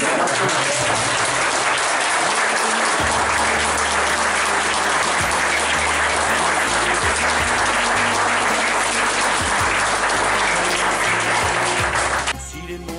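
A roomful of guests applauding, with background music underneath. The applause cuts off suddenly about a second before the end, leaving only the music.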